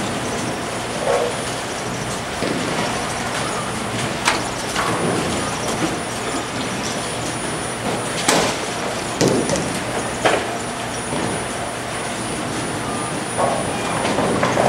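Bowling alley din: a steady rumble of balls rolling down the wooden lanes, broken a few times by sharp crashes of pins being struck, the loudest near the middle.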